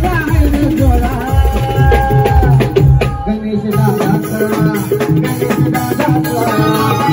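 Live band music: an electronic drum pad and a drum kit beating out a rhythm under a keyboard melody. The deepest bass drops away about three and a half seconds in.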